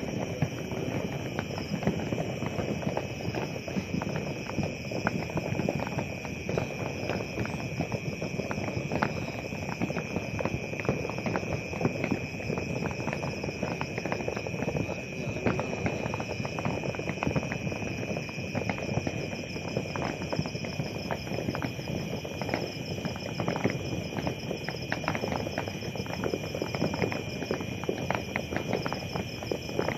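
Fireworks and firecrackers popping and crackling in a dense, continuous stream of sharp cracks, with a steady high chirring of crickets underneath.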